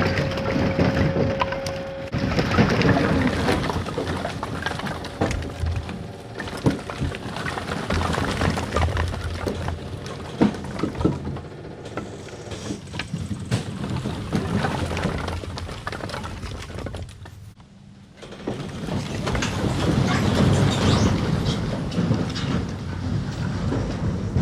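About a cord of split firewood tumbling out of a tipping dump bed, the logs clattering and knocking against each other and the bed in a long run of sharp cracks, over the steady hum of a running engine. The clatter eases off briefly about two-thirds of the way through, then picks up again as more wood slides out.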